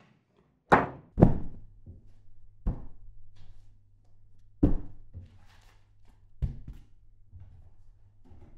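Several dull thuds as clothes and a book are dropped onto a pile on a bed, the two loudest close together about a second in, over a low steady hum.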